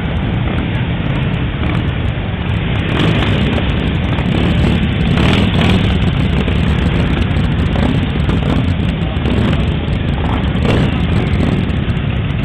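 A column of motorcycles, many of them Harley-Davidson V-twin cruisers, riding slowly past one after another. The engines make a dense, steady low rumble that swells a little a few seconds in.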